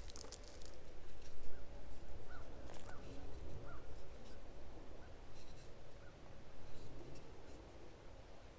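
Light scratches and rustles from a wooden stick being handled, with a few faint bird calls in the background.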